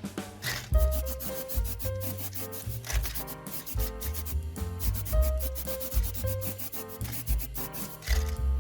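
Rapid rubbing strokes of sanding on a scale-model car part, over background music with a melody and a stepping bass line.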